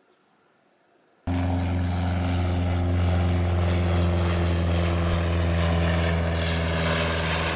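Small propeller airplane flying low overhead, its engine drone steady and loud. It starts abruptly about a second in.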